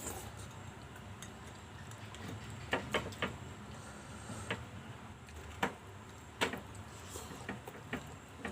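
Eating green mussels and shrimp: about ten sharp clicks and taps at irregular intervals, a quick cluster about three seconds in and then single ones, as from shells being handled and cracked.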